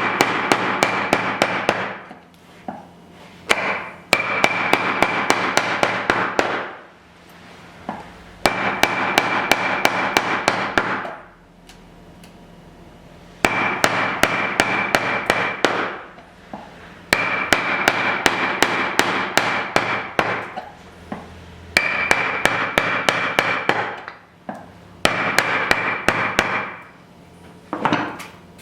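A wood chisel struck in rapid light taps with a mallet to pare waste from a lap joint, in runs of two to three seconds with short pauses between. The steel rings faintly under the blows.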